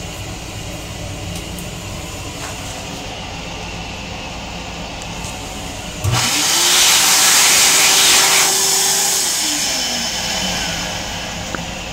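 Electric hand dryer switching on about halfway through: a sudden loud rush of air, with the motor's whine rising quickly to a steady pitch. It runs about three seconds, then winds down with a falling whine. Before it there is only the steady low rumble of the M9 railcar.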